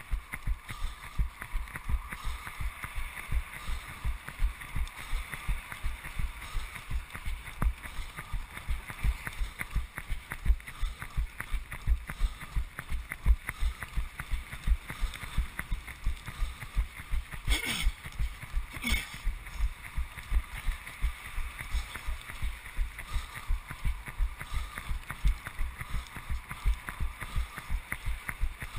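A runner's footfalls on wet asphalt, heard through a camera worn on his body as a regular thump about three times a second, over a haze of wind and road noise. Twice, a little past halfway, there is a short sharp sound.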